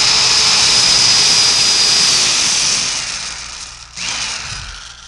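Electric drill running at full speed with a steady high whine, then released so the motor winds down. A short second burst about four seconds in also winds down.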